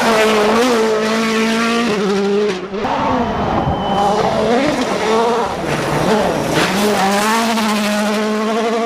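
Race-car engine sound effect for a toy rally car, the engine revving up and down in pitch, with a short break about three seconds in.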